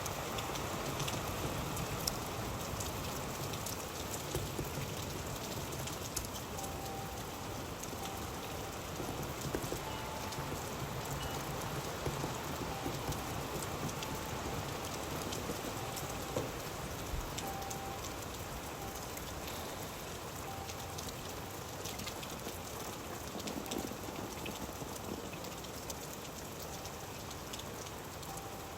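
Steady rain falling, with a dense patter of individual drops ticking on a surface. Faint short tones recur now and then in the background.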